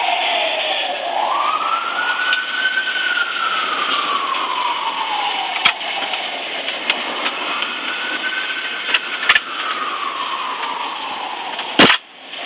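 Emergency vehicle siren wailing, slowly rising and falling twice, over steady background hiss. A few sharp clicks, with the loudest knock near the end.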